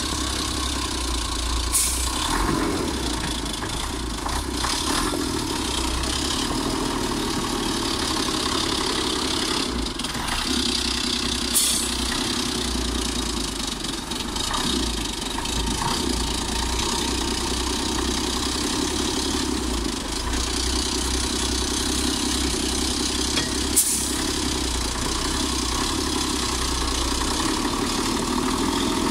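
FAP heavy truck's diesel engine idling steadily, with three short sharp clicks over it.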